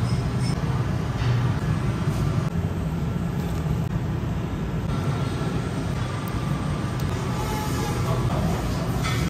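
Steady low hum and rumble of commercial kitchen equipment running.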